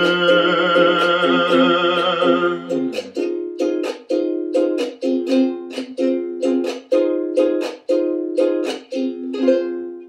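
Mainland soprano ukulele, red cedar and rosewood, strummed in steady chords about twice a second, with a man's voice holding one long sung note with vibrato over it for the first few seconds. The ukulele then plays alone and ends the song on a last chord that rings out.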